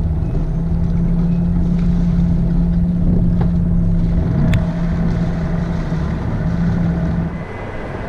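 Lagoon 400 catamaran's inboard diesel engine running steadily in forward gear, pushing the fendered bow against the quay on a spring line so the stern swings out. The engine note drops away shortly before the end.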